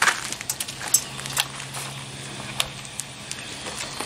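Scattered clicks and taps of hands handling the plastic body shell and body clips of an RC monster truck on a glass table, over a faint steady low hum.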